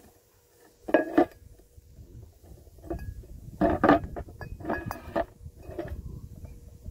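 Metal parts of a submersible well pump clinking and knocking together as it is reassembled by hand: a cluster of clinks about a second in, then several more clusters between about three and six seconds in.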